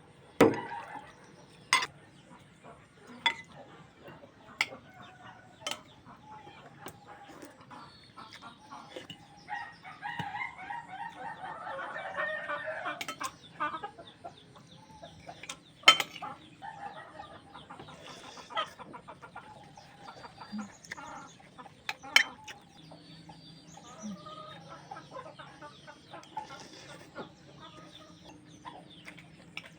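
Chickens clucking, with a rooster crowing about ten seconds in, and scattered sharp knocks.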